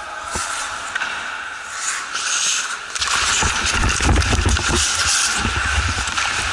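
Ice hockey in play on a rink: skate blades scraping the ice with sticks and puck clattering, getting busier and louder with a low rumble from about three seconds in.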